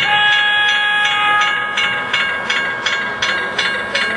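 Model steam locomotive running with rhythmic chuffing, about three beats a second, over a steady whine.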